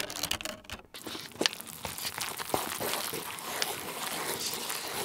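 A foil sauce packet emptied into a Jjapaghetti cup noodle near the start, then chopsticks stirring the noodles and sauce in hot water: a steady wet rustle with scattered small clicks against the paper cup.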